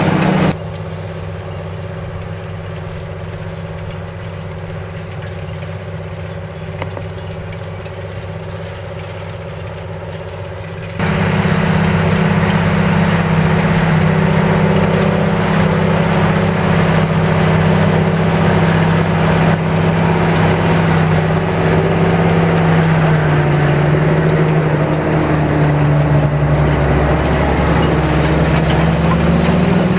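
John Deere 8430 tractor's diesel engine running steadily under load while pulling a Köckerling Allrounder cultivator through the soil. For the first ten seconds it is quieter and duller, then from about eleven seconds it is louder and fuller. Near the end the engine note sags a little and recovers.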